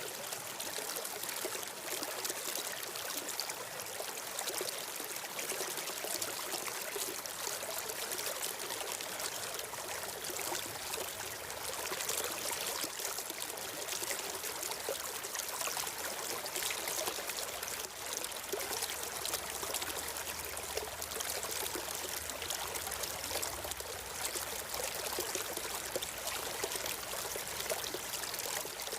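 A stream of water flowing and trickling steadily, with an even, unbroken rush.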